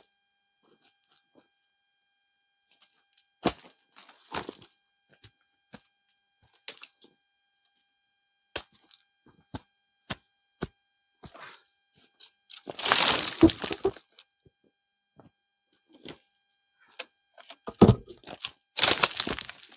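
Scattered snaps of dry twigs and steps on stony ground as dry branches are gathered, with two loud rustling scrapes of a dead branch being dragged over the ground: the first past the middle, the second near the end after a sharp knock.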